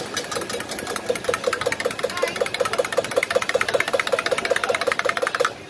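A metal spoon clinking against the inside of a small stainless steel mug as coffee is stirred briskly, about five ringing clinks a second in an even rhythm. The stirring stops suddenly near the end.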